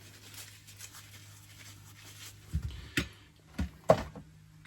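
Handling noise from the genset's coolant and exhaust fitting being worked on by hand, with a few short knocks in the second half, the loudest near the end, over a low steady hum.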